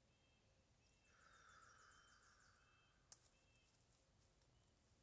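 Near silence with faint bird calls: short high chirps recurring every second or so, and a quick series of descending chirps about a second in. A single sharp click about three seconds in.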